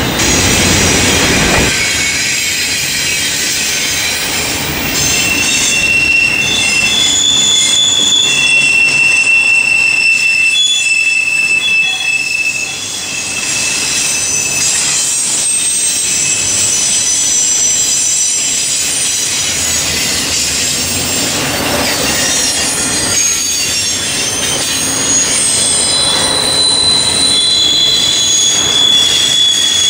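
Double-stack intermodal freight cars rolling past close by: a steady rumble of steel wheels on rail, with high-pitched wheel squeals that come and go, most plainly in the first half and again near the end.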